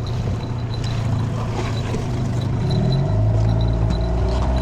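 Boat motor running and building up, growing louder with a step in its pitch about three seconds in as the boat gets under way.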